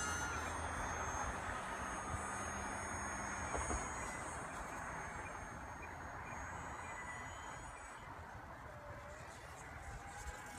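Faint whine of a ParkZone UMX Icon A5's small electric motor and propeller flying overhead, its pitch shifting slightly as the plane passes, over a steady background rumble of road traffic and wind.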